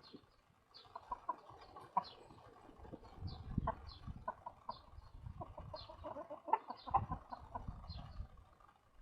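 Domestic hens clucking in quick runs of short notes, several times across the stretch. A thin high chirp repeats about every half second.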